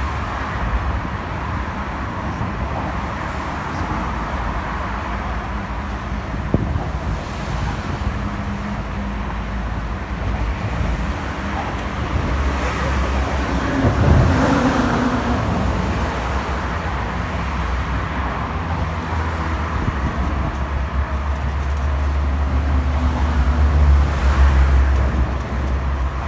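Road traffic passing on a bridge: a continuous low rumble that swells as vehicles go by, once about halfway through and again near the end.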